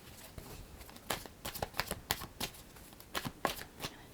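Tarot cards being shuffled and handled: a quick, irregular run of soft card flicks and clicks that starts about a second in.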